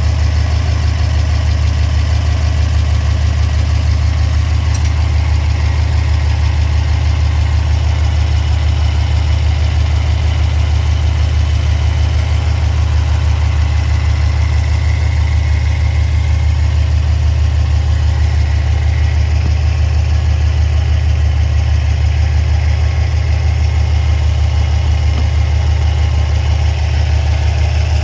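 Subaru WRX STI's turbocharged 2.5-litre flat-four boxer engine idling steadily with a deep, even hum, run after a block heater install and coolant refill to check for leaks.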